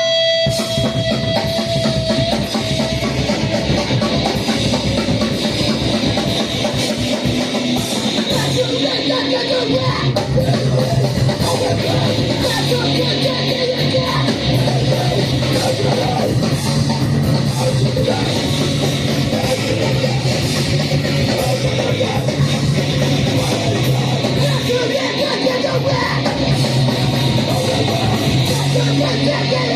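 Live band playing loud, distorted heavy music, guitar and drums going without a break.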